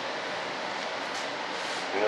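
Steady even hiss of workshop background noise, with a faint scratchy swish about a second in as a paintbrush works primer onto the model's surface.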